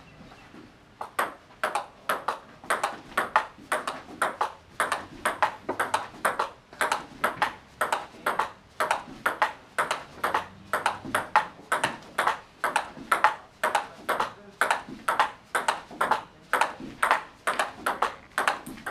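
Table tennis rally: the ball clicks in a steady rhythm, about three to four clicks a second, as it alternately strikes the rackets and bounces on the table. The rally starts about a second in.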